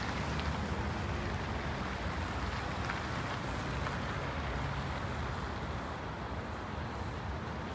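Steady city street traffic: a low rumble of vehicle engines with tyre noise from the road.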